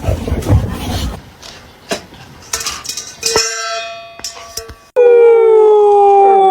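A dog howling: one long, loud howl that starts abruptly about five seconds in and slides slowly down in pitch, wavering as it trails off. Before it come a few metallic clinks and ringing clangs.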